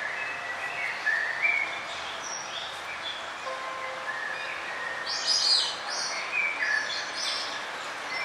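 Songbirds singing, a run of short chirping notes over steady background noise, with a louder burst of high notes about five seconds in.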